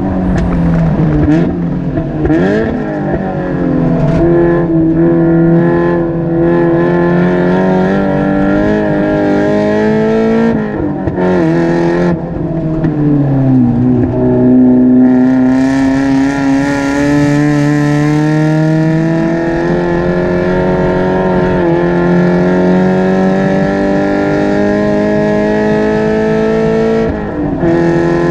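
Race car engine running hard at high revs, its pitch climbing under acceleration and falling sharply when the driver lifts and downshifts. Near the middle there is a long, steady climb through the revs, and the pitch drops again near the end.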